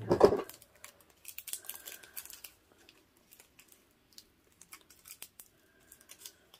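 Soft crinkling of a small plastic packet of diamond-painting drills and light clicks of a plastic tray being handled, with a louder rustle right at the start.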